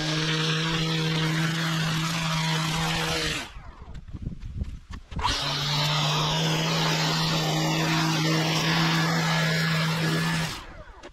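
Petrol lawn edger's small two-stroke engine running at high, steady revs as its blade cuts the turf along a concrete path edge. The engine note drops away for about two seconds a few seconds in, and again near the end.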